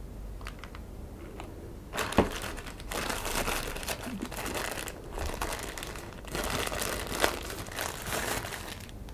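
Plastic packaging bag crinkling as it is handled and unwrapped, starting about two seconds in with a sharp snap and going on in repeated bursts.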